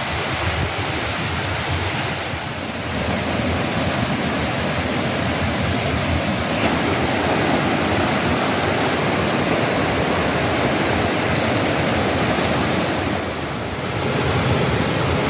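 Mountain valley stream rushing steadily, a continuous rush of flowing water.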